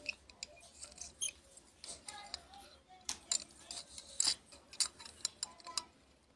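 Irregular light clicks and taps of a thin wire tool and small wooden parts knocking against the inside of a glass bottle while a miniature folding cot is fitted inside it. The taps come more often in the second half.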